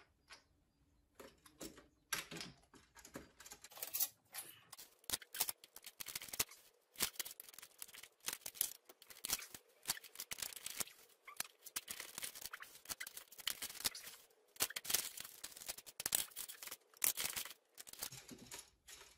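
Plastic Connect Four discs clicking and clattering as they are handled and dropped into the upright grid: an irregular run of sharp clicks, sparse at first and thicker after a few seconds.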